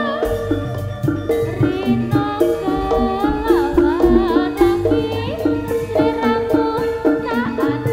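Javanese jaranan ensemble music: gamelan-style metallophones playing a rhythmic pattern of struck notes over drum beats, with a gliding melody line on top.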